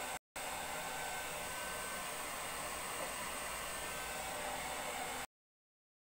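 Handheld hair dryer running steadily, a constant blowing whir with a faint high whine. The sound drops out to dead silence for an instant near the start and again for about the last second.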